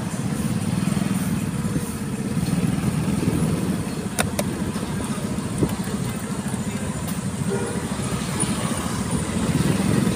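Motorcycle engine running steadily while the bike rides along a street, heard from on board, with a brief click about four seconds in.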